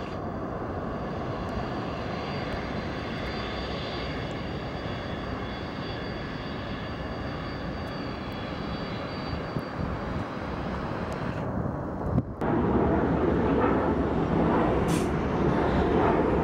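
Boeing 767-400's twin jet engines at taxi power: a steady rumble with a high whine on top. About twelve seconds in, the sound cuts to the louder jet noise of an Airbus A321 at takeoff thrust as it lifts off.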